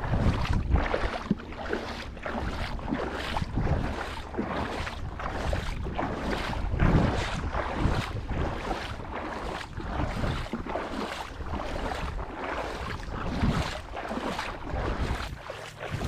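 Shallow seawater sloshing and splashing in a steady rhythm, about two swishes a second, as a person wades through it. Wind rumbles on the microphone.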